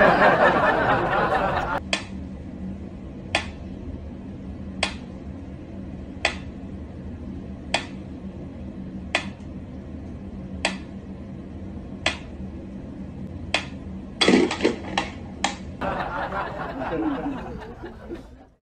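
Mechanical pendulum metronome ticking slowly and evenly, about one tick every second and a half, nine ticks in all, over a low steady hum. A louder stretch of mixed noise comes before the ticking starts. After the ticking, a quick cluster of clicks and knocks is followed by more mixed noise.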